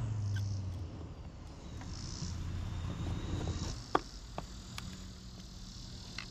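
Outdoor background: a low steady rumble, like a vehicle in the distance, with faint insect chirping. About four seconds in there is a single sharp click with a brief ringing tone.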